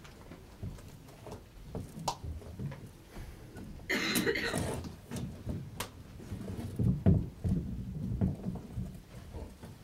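Quiet shuffling footsteps and soft knocks as a performer in a large puppet costume moves across a stage floor, with a brief rustling hiss about four seconds in and low thuds in the second half.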